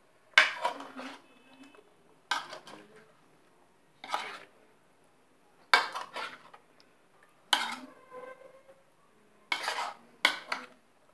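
Metal spoon scraping and clinking against a plate while gently stirring paneer cubes in a thick marinade, about seven separate strokes roughly two seconds apart.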